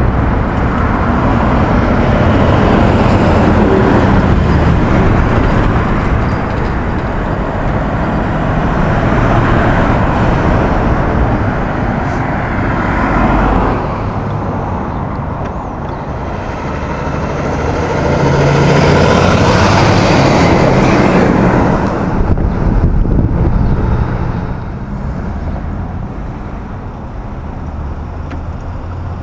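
Road traffic passing close by: cars and heavy trucks driving past with engine rumble and tyre noise, swelling and fading in several long pass-bys.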